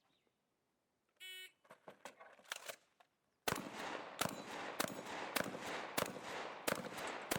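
A shot timer beeps once, about a second in. Two seconds later a Benelli Supernova 12-gauge pump-action shotgun starts firing a rapid string of shots, roughly two a second, with the pump being worked between them.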